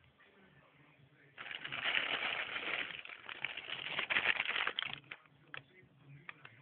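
Plastic wrapping crinkling and rustling for about three and a half seconds as a packed item is handled inside a cardboard box, followed by a few scattered clicks and taps.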